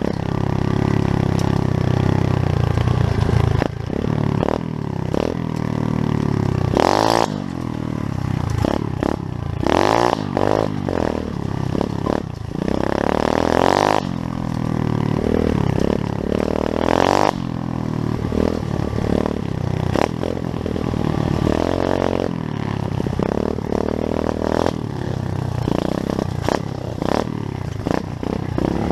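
Pit bike's small single-cylinder engine running under riding, its revs repeatedly rising and falling, with some rattling clatter.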